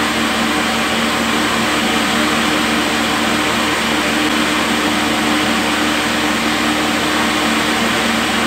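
Wheat flour mill (atta chakki) and its 20 HP electric motor running steadily: a continuous loud whirring with a steady hum.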